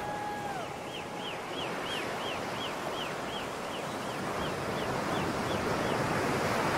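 Steady rush of water splashing in a water-park pool and off a water slide, slowly growing louder. A faint high chirp repeats about three times a second over it.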